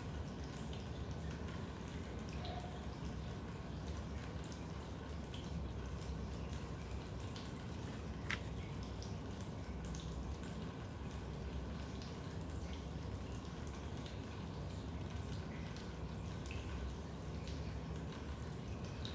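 Raindrops dripping into a basement: small, irregular drips over a steady low background noise, with one sharper, louder drop about eight seconds in.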